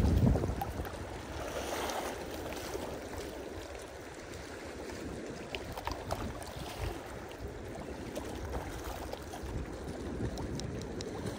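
Lake water lapping with wind rumbling on the microphone, and a low thump right at the start.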